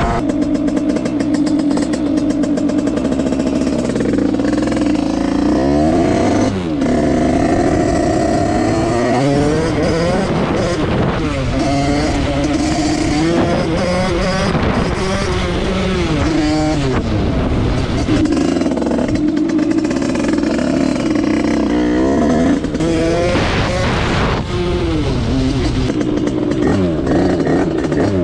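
Derbi Senda's two-stroke engine, fitted with a Stage6 88cc kit and a Voca Cross exhaust, running hard at high revs. Several times the pitch drops and climbs again as the throttle is shut and reopened.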